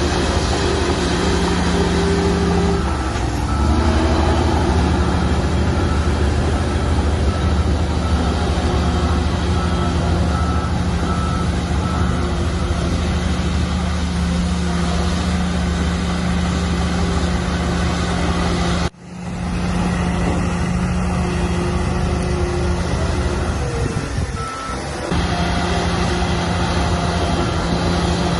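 Heavy diesel earthmoving machinery, a bulldozer and dump trucks, running steadily under load. A reversing alarm beeps over it for several seconds early on. The sound drops out briefly a little past the middle.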